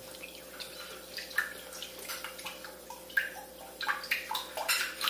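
Milk being poured into a saucepan, an uneven splashing pour.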